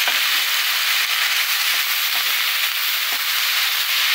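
Sliced zucchini, onion and bell pepper sizzling steadily in a hot nonstick frying pan, with a few light knocks of a wooden spatula as they are stirred.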